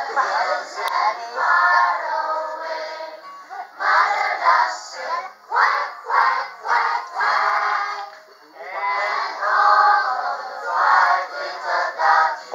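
A song with a singing voice over music, with a brief lull about eight seconds in.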